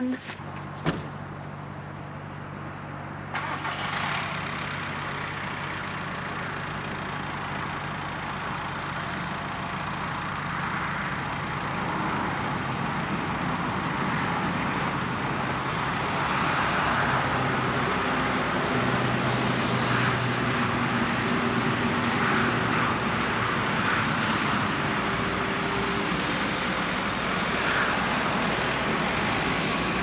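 VW T5 camper van driving on the motorway: steady engine hum and road noise whose pitch shifts now and then, growing louder over the second half. A single click sounds about a second in, and the sound changes abruptly a little over three seconds in.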